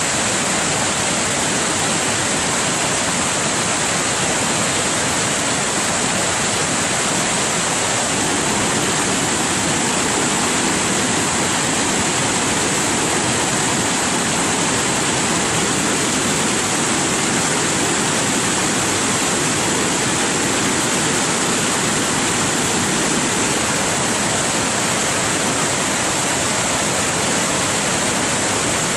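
Waterfall in heavy flood: a torrent of water rushing and crashing down a rock slope, a loud, steady rush of noise.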